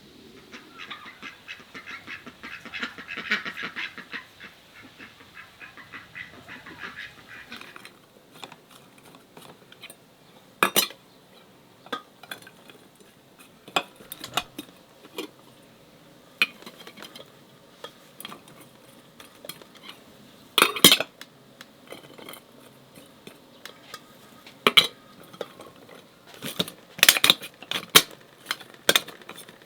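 Kitchen handling sounds: a dense patter of small scraping clicks for the first eight seconds or so, then separate sharp clinks and knocks of dishes and utensils set down and moved, more frequent near the end.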